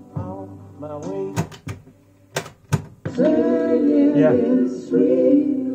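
Several sharp mechanical clicks from a boombox's cassette deck, then, about three seconds in, a song with singing plays loudly from the tape through the boombox's speakers.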